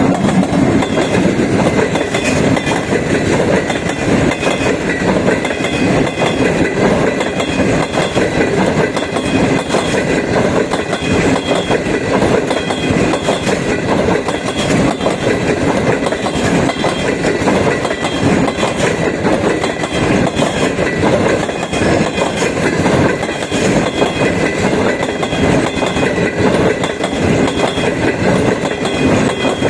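Train running on the rails with a steady rumble and dense clickety-clack from the wheels.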